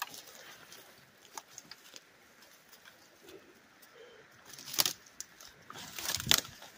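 Branches and undergrowth rustling and crackling as someone pushes through dense forest brush on foot, with scattered small snaps and two louder brushing crashes near the end.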